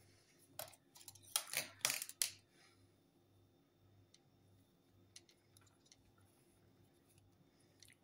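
Hands handling yarn to tie a slip knot: a quick cluster of loud rustling and brushing noises about a second in, lasting under two seconds, then only faint scattered clicks.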